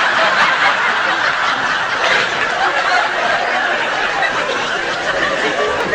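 A woman laughing helplessly, in one long unbroken fit of giggling.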